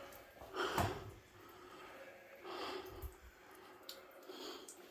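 A person's breathing, with a couple of soft breaths or snorts and faint scuffs of movement.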